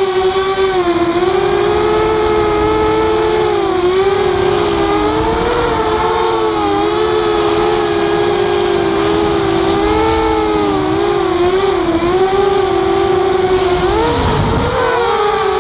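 Walkera F210 racing quadcopter's motors and propellers whining, several close pitches wavering up and down as the throttle changes; about fourteen seconds in the pitch drops briefly as the throttle is cut, then rises again.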